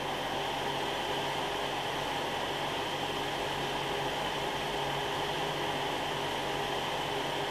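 Sapphire HD7970 Vapor-X graphics card cooling fans running at about half speed, a steady rushing whoosh with a whine that sounds like a jet engine.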